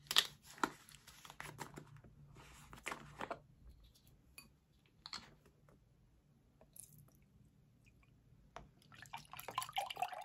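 A carton of Silk soy eggnog being shaken and handled, with a run of short knocks and sloshes in the first three seconds, then a few faint clicks. Near the end the eggnog pours from the carton into a glass.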